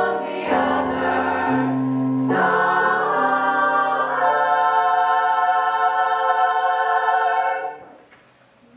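Choir singing in chords, ending on a long held chord that is released about a second before the end.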